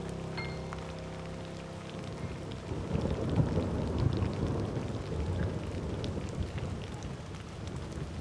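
Heavy rain with rolling thunder. The rain comes in as a held music chord dies away in the first two seconds, and the thunder rumble swells about three seconds in.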